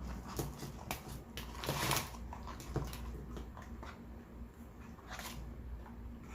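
Close-miked eating sounds: chewing with small wet mouth clicks and smacks, and one louder, short noise about two seconds in.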